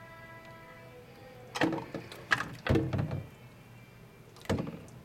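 Plastic Titanic model knocking and splashing in a water-filled stainless steel sink as it breaks in two: a run of clatters about a second and a half in, and another knock near the end.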